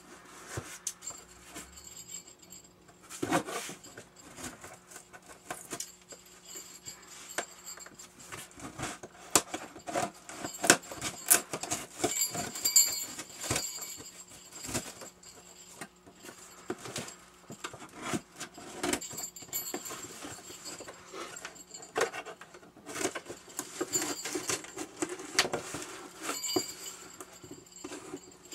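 Scissors cutting and prying at the packing tape of a cardboard box, with the box being handled: a long run of irregular snips, scrapes, taps and rustles.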